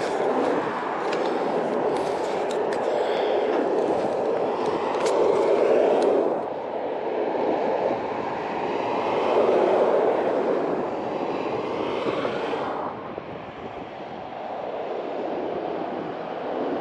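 Steady rushing road and wind noise from a moving bicycle, swelling and easing a few times, with sharp clicks and rattles over the first few seconds.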